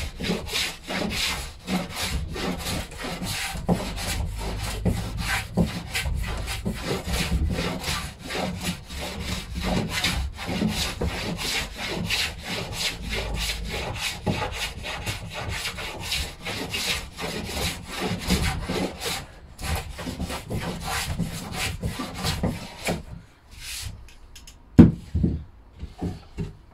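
Hand plane shaving a pine board in quick, repeated strokes. The strokes stop near the end, followed by a few knocks, one of them sharp and loud.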